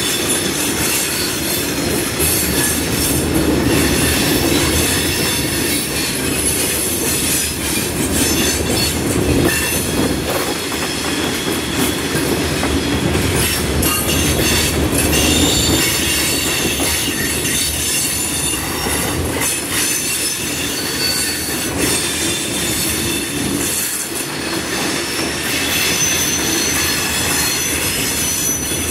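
Railroad cars of a train rolling on the rails, with wheels squealing in high, shifting tones and clicking over rail joints.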